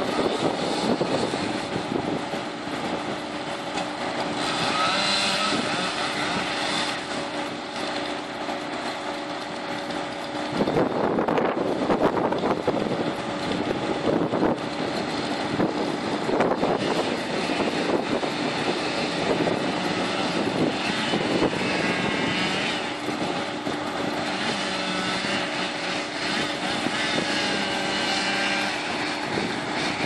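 Engines of heavy tree-removal machinery (mobile crane, excavator and wood chipper) running as a steady drone. About ten seconds in it turns louder and rougher for several seconds, then settles back to the drone.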